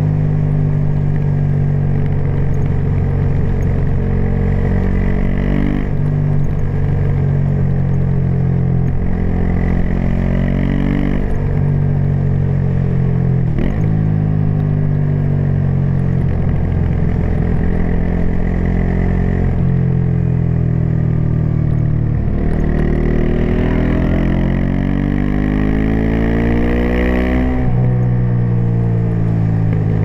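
Aprilia SX 125's single-cylinder four-stroke engine through an Arrow Thunder slip-on with dB-killer and Arrow racing header, pulling under load. Its pitch climbs and drops sharply several times at upshifts, with a longer easing-off in the middle before one long climb near the end.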